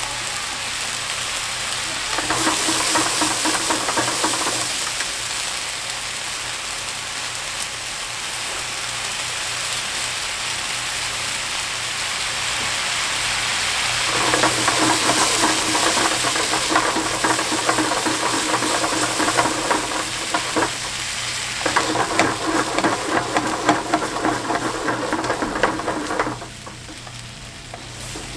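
Food sizzling in oil in a frying pan, with louder, busier spells where it is being stirred or tossed. The sizzle dies down sharply near the end.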